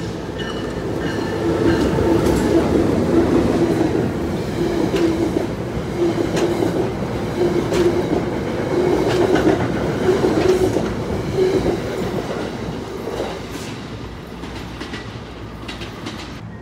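A train passing on the rails, its wheels clicking over the rail joints with a steady hum underneath. It builds over the first couple of seconds, holds, and fades away over the last few seconds.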